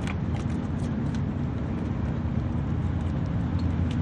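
Steady low background rumble, with a few faint clicks near the start.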